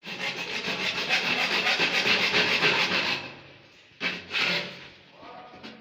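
A hand tool scraping back and forth on PVC pipe in fast, even rasping strokes for about three seconds. A shorter burst of strokes follows about a second later.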